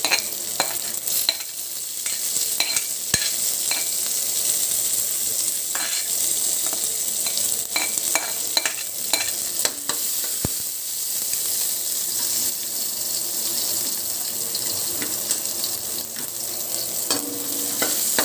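Garlic, onion and chopped siling labuyo (bird's-eye chilies) sizzling steadily in hot oil in a wok, with short clicks and scrapes of a spoon against the metal as they are stirred.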